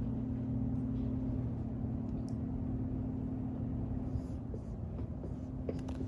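Steady low electrical hum with room noise, holding two steady low tones, and a few faint clicks near the end.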